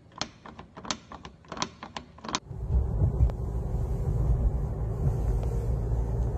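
About a dozen sharp, irregular clicks over the first two and a half seconds. Then a steady, loud low rumble from inside a moving car's cabin.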